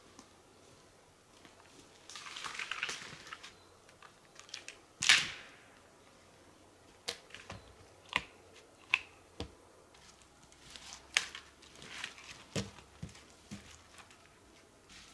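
Dry branches and forest litter being handled: a rustle, then one loud sharp crack of wood about five seconds in, followed by a scattered run of short snaps and knocks as poles are moved and laid against a leaning trunk.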